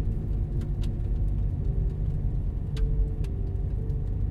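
Car driving, heard from inside the cabin: a steady low rumble of engine and road noise, with a faint hum and a few light clicks.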